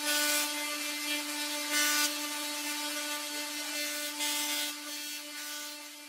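Tesla coil discharging: a steady buzz held at one pitch under a harsh hissing crackle from the sparks, which swells a few times and fades near the end.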